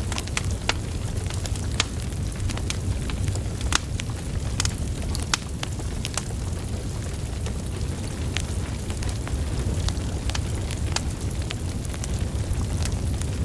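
Wood fire burning: a steady low rumble of flames with irregular sharp crackles and pops from the burning logs.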